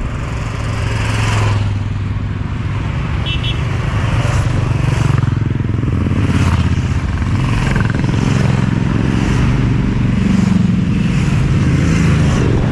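Royal Enfield single-cylinder motorcycle running steadily at road speed, its low engine note under road noise. A short high beeping comes about three seconds in.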